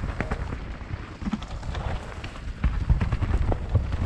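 Mountain bike riding down a rough dirt trail: tyres on the ground, the bike rattling and knocking over bumps, over a heavy low rumble. The louder knocks come in the second half.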